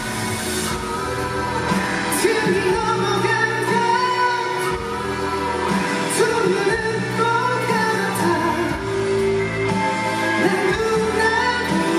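A male vocalist singing a Korean drama OST song live, with backing music and a regular beat.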